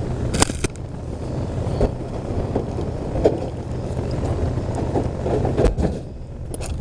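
Vehicle engine idling with a steady low rumble, and a few sharp knocks and clatters over it, the loudest about half a second in and a little after three seconds.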